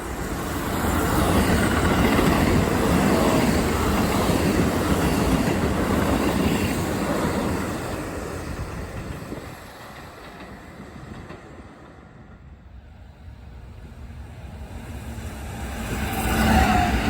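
A Keisei Electric Railway train passing: its noise builds over the first two seconds, holds loud, then fades away. The noise rises again near the end.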